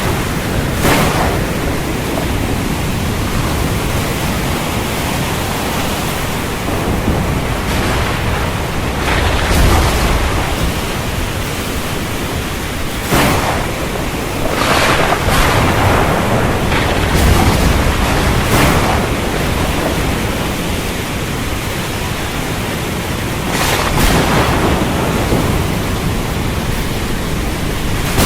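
Storm wind with surf, a continuous heavy rushing noise. Several times it swells into short, sharper surges, about a second in, around a third of the way through, twice near the middle and again near the end.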